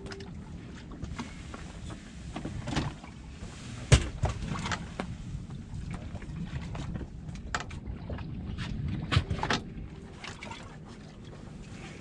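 Sounds aboard a small fishing boat: a steady low rumble of wind and water against the hull, with scattered knocks and clatter on deck. The loudest is a sharp knock about four seconds in, and another comes a little after nine seconds.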